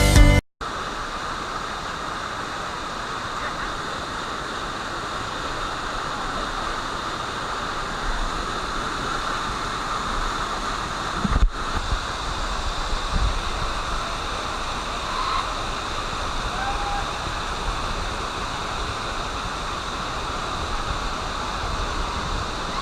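Waterfall rushing: a steady, even noise of falling water, with a brief low thump about eleven seconds in.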